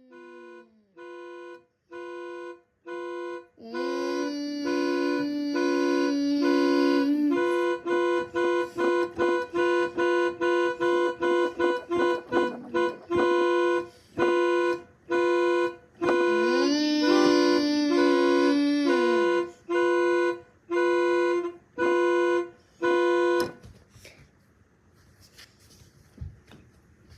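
Synthesized EAS-style alarm: a pitched electronic tone beeping on and off, getting louder over the first few seconds and then pulsing rapidly. Twice a longer held tone, bending in pitch at its start and end, sounds over the beeps. The alarm stops abruptly about 23 seconds in.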